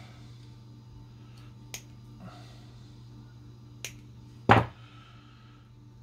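Small sharp clicks from hand work fitting a replacement capacitor onto a circuit board, its leads being bent and handled: a few light clicks and one louder snap about four and a half seconds in, over a steady low hum.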